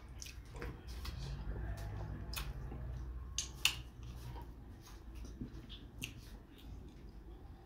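Soft wet clicks and smacks of eating fufu with sticky ogbono soup by hand: fingers pinching fufu, dipping into the soup, and chewing. A faint low hum runs under the first few seconds.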